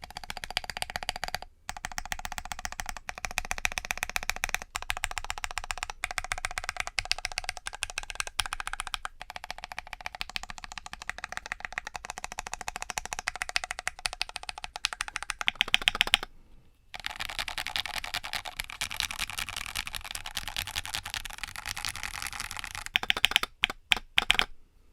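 Fast, continuous typing on a 60% mechanical keyboard with Gateron Milky Cap V2 switches in a gummy O-ring-mounted case: a dense stream of key clacks. It breaks briefly about a second and a half in and again about two-thirds of the way through, and stops just before the end.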